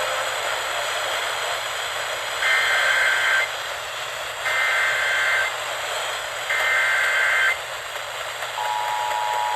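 Emergency Alert System SAME header: three one-second bursts of shrill digital data screech, two seconds apart. Near the end the steady two-tone EAS attention signal begins. The sequence opens a new alert and plays over constant radio hiss.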